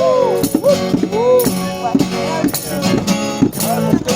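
Music: a band playing with guitar and a shaker-like rattle keeping a steady beat, under repeated long glides that rise and fall in pitch.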